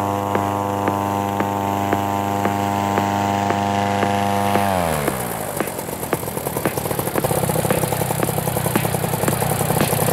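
A steady engine hum with a regular tick slides down in pitch and stops about five seconds in. A paramotor engine then takes over, running rough and unevenly at low throttle and growing slightly louder.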